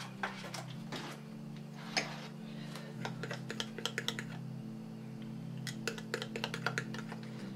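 Fork stirring pancake batter in a glass cup: quick, irregular clicks and scrapes of the tines against the glass, thickest in the second half. Soft background music with low sustained notes plays beneath.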